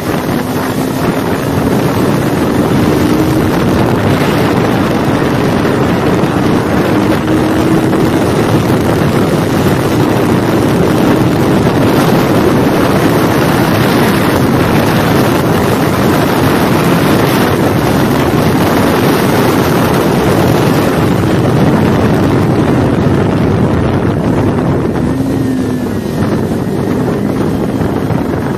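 Kawasaki Ninja 400 parallel-twin engine running hard at track speed, heard from on board under heavy wind rush on the microphone. The engine pitch climbs slowly over the first several seconds, and the level dips briefly near the end.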